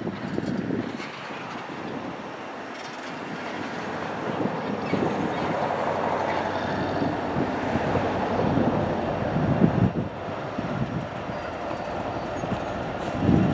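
Freight train led by EMD SD70ACe diesel-electric locomotives rolling slowly past, its engines running and its wheels clacking over the rails. It gets louder about four seconds in as the locomotives draw near.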